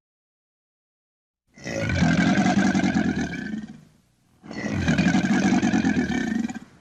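Crocodile growling: two long, deep, rough growls of about two seconds each, separated by a short pause.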